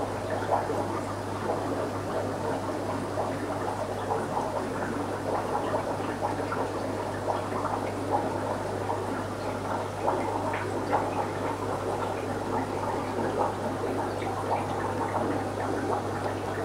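Aquarium water bubbling and gurgling steadily, with many small pops, over a constant low electric hum.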